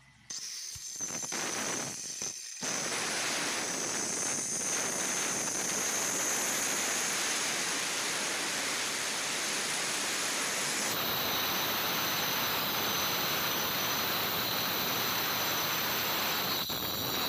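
Handheld electric circular-blade cutter running and cutting along a wooden door-frame timber, cutting the rebate: a steady high whine over the noise of the blade in the wood. It starts just after the beginning, breaks off briefly about two and a half seconds in, then runs on without a break. Its whine drops to a lower pitch about two-thirds of the way through.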